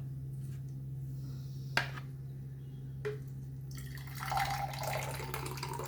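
Freshly strained amla juice being poured, trickling in from about four seconds in, after two light knocks. A steady low hum runs underneath.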